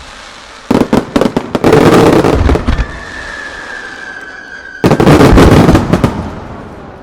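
Star mine fireworks barrage: a quick volley of sharp bangs about a second in runs into a dense crackling salvo, then a high whistle falls slightly in pitch before another heavy volley of bursts near five seconds that fades away.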